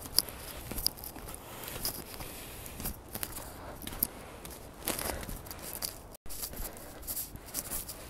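Footsteps crunching through fresh snow, with crackling and rustling of clothing and the handheld phone. The sound breaks off for an instant about six seconds in.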